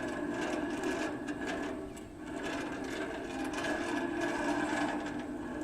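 Timbertuff portable band sawmill running steadily with its band blade spinning freely, not cutting, while the newly tensioned blade's tracking on the wheels is checked.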